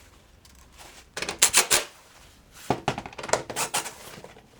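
Knocks and rattles of ATV footwell parts being handled and fitted into place, in two clusters: one about a second in and a longer one from near three seconds.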